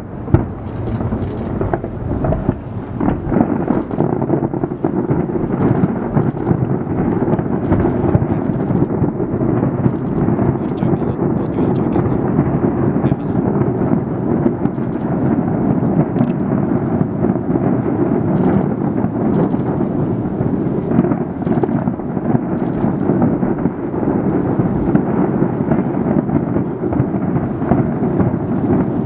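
Distant aerial fireworks display: a continuous rumble of overlapping shell bursts, with a few sharper bangs in the first few seconds and scattered crackles throughout.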